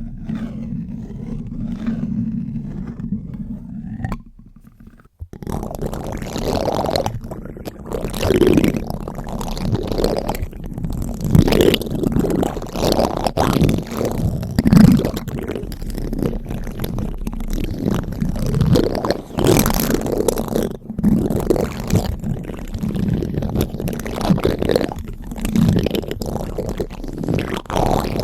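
Spoon scraping and rubbing directly on a microphone in close, irregular strokes. The first few seconds are a muffled low rumble, and after a brief near-pause the strokes come denser and brighter.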